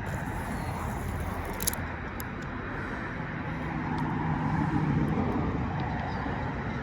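Steady rumble of road traffic, swelling as a vehicle passes about four seconds in, with a faint click about two seconds in.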